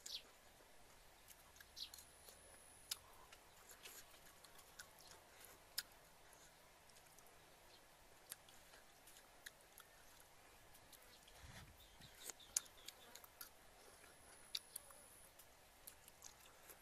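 Quiet eating sounds: a metal spoon clicking against a ceramic soup bowl and soft chewing, heard as scattered short sharp clicks over near silence.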